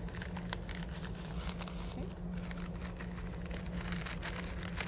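Newspaper being folded and tucked by hand, crinkling and rustling in many short crackles, over a steady low hum.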